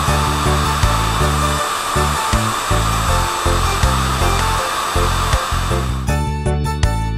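Background music with a pulsing bass line, under a steady rushing hiss from the flying truck's jet thrusters that cuts off suddenly about six seconds in, leaving only the music.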